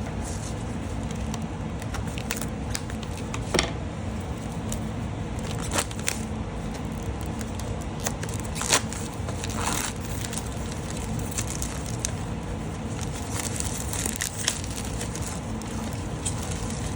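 Plastic packaging of a six-piece nail art brush kit being handled and opened: crinkling, rustling and tearing with scattered sharp clicks, over a steady low background rumble.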